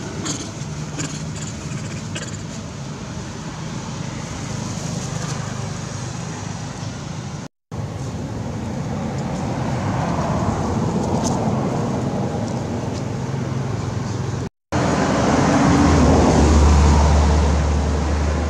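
Road traffic passing, a steady wash of vehicle noise that swells twice. The louder swell near the end comes with a deep engine hum. The sound breaks off twice for a moment.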